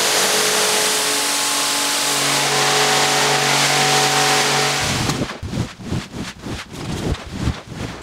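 Pressure-washer wand spraying water into a wet rug: a loud, steady hiss of water over the machine's motor hum, which shifts in pitch about two seconds in. The spray stops about five seconds in, and is followed by irregular scraping and rustling strokes, roughly two a second.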